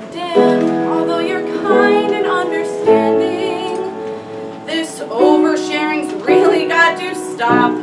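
A woman singing a comic musical-theatre song over instrumental accompaniment, holding some notes with vibrato.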